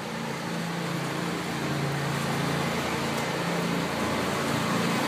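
Small motorized kiddie train running along pavement: a steady motor hum with wheel and road noise, getting slightly louder toward the end.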